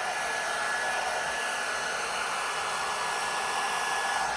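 Revlon One-Step round-brush hot-air styler running steadily: a constant rush of blown air with a thin, steady motor whine.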